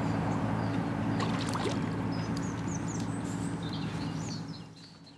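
A motor running with a steady low hum, fading away near the end, with small birds chirping over it.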